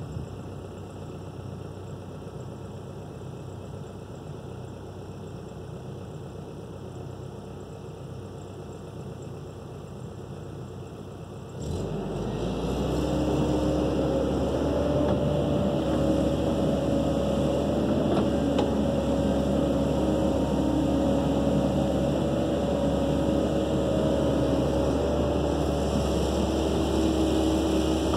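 Kobelco SK135SR excavator's diesel engine running at a low, steady idle, then about twelve seconds in stepping up sharply to a louder, steady high-revving run with a faint whine riding on it while the boom and bucket work.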